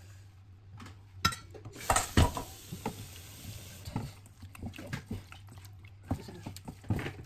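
Raw chicken pieces being mixed by hand in beaten egg in a stainless steel bowl: wet squelching with irregular small clicks against the metal. A few louder knocks of bowl against bowl come about one to two seconds in.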